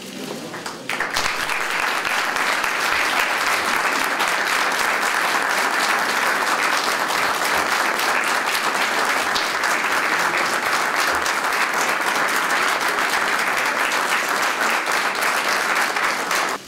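A room full of people applauding, rising about a second in into steady, sustained clapping that cuts off abruptly at the end.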